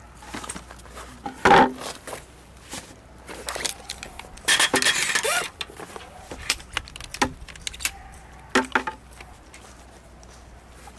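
Intermittent clinks and knocks of objects being handled, with a louder clink about a second and a half in and a brief rustling clatter around the middle.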